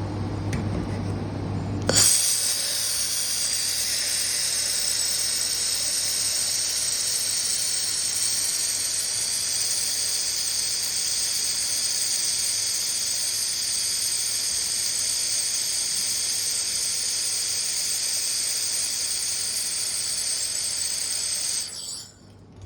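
Handheld laser welder welding stainless steel round pipe: a steady, high hiss that starts suddenly about two seconds in and cuts off near the end, over a low, steady machine hum.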